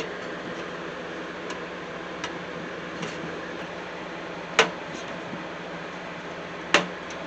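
A thin metal I/O shield being pressed into the rear opening of a PC case: a few faint ticks, then two sharp snapping clicks about two seconds apart as it seats. A steady low hum runs underneath.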